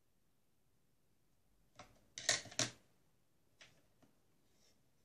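A few sharp clicks and knocks as small laptop parts (the SSD and its mounting frame) are handled and set down, the loudest two a little past the middle, then two faint taps.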